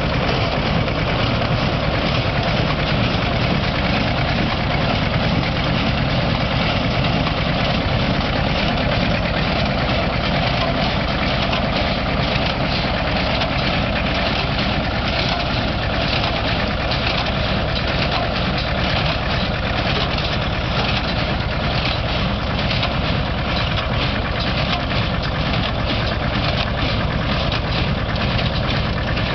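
Green John Deere-type farm tractor engine running steadily at working speed, pulling a New Holland small square baler, with the baler's mechanism clattering in a fast, even rhythm over it.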